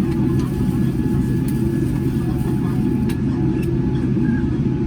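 Boeing 787-10 cabin noise while taxiing: a steady low rumble from the idling engines and the rolling aircraft, with a faint steady whine over it and a few light clicks.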